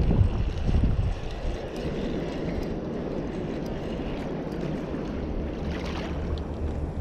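Wind rumbling on the microphone, gustier in the first second and then steady.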